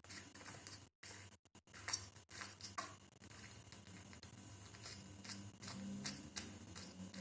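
A pet rat breathing through a stuffy, congested nose: many quick, irregular clicks and snuffles with each breath in and out, with sneezes among them.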